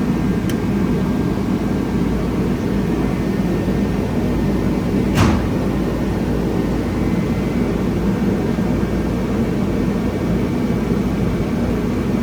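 Steady low drone of background machinery, with one short sharp hiss or scrape about five seconds in.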